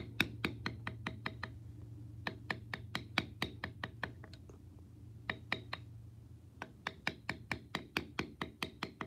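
Mallet striking a steep checkered beveler into leather: rapid sharp taps, about five a second, in runs broken by short pauses.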